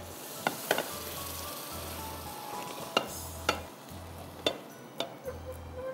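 Food sizzling in a pan while a spoon stirs it, knocking sharply against the pan several times.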